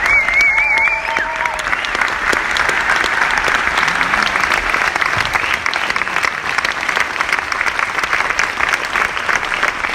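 Large audience clapping steadily and densely. A wavering cheer rises over the clapping for about a second at the start.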